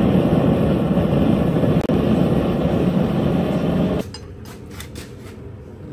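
Forge running with a loud, steady rushing noise that cuts off abruptly about four seconds in. After it, the shop is much quieter, with a few light knocks.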